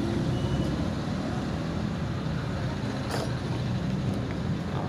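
Steady low rumble of background road traffic, with one short sharp click about three seconds in.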